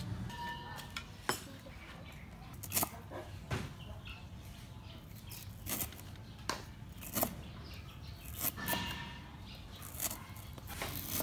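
Kitchen knife chopping stalks on a round wooden chopping board: sharp, irregular knocks, roughly one a second.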